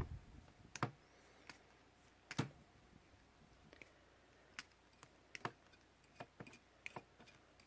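Faint, irregular light clicks and ticks of soft 16-gauge wire being wrapped round the metal barrel of bail-making pliers, coiling it for jump rings.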